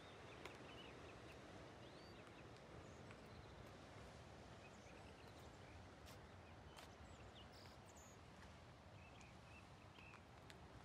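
Near silence: a faint steady outdoor hiss with scattered soft, high bird chirps.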